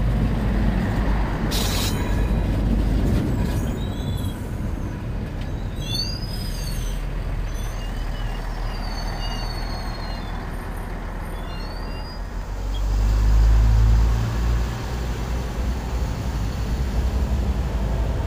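Bombardier Talent diesel railcar passing close by, a low rumble of engine and wheels on the rails that eases as it draws away, with one sharp clack about a second and a half in. A louder low rumble swells about thirteen seconds in as the train runs past again.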